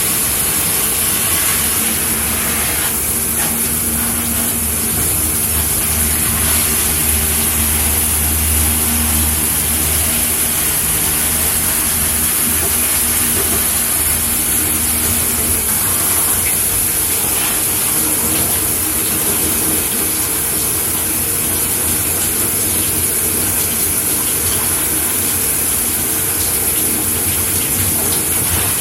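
Shower head spraying water steadily, a constant hiss of falling water. A low hum runs under it through the first half and fades out about halfway through.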